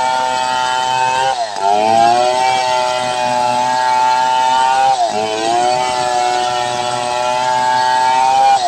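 Large two-stroke chainsaw, an assembled Stihl 070-type saw, running at full throttle while ripping lengthwise along a log to make a beam. Three times the engine note drops sharply as the chain bogs in the cut, then climbs back.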